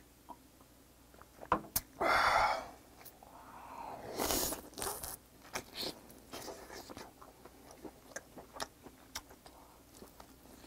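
Close mouth sounds of a man eating: a loud breathy burst about two seconds in, just after a shot of liquor, then biting meat off a boiled pheasant leg and chewing, with wet smacks and small clicks.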